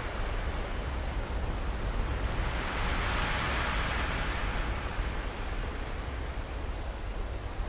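Steady rushing noise with a heavy low rumble: wind and rotor wash on the microphone of a camera carried aloft by a quadcopter drone. It swells for a couple of seconds near the middle.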